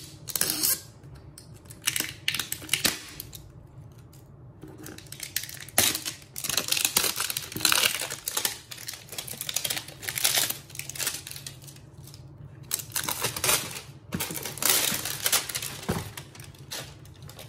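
Plastic shrink-wrap on a cardboard box being slit with a knife and peeled off by hand: irregular crinkling and crackling of the film in bursts, with light clicks and scrapes of the blade and fingers on the box.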